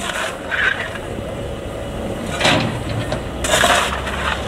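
Coal being shovelled from a coal stack into a steam locomotive: a few short bursts of shovel and coal noise, the longest about three and a half seconds in, over a low steady rumble.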